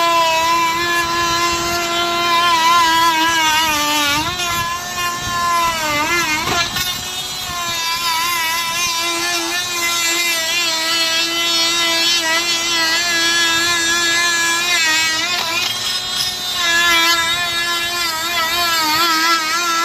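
A small engine running steadily at high speed. Its pitch sags and recovers a few times, as if it were briefly loaded.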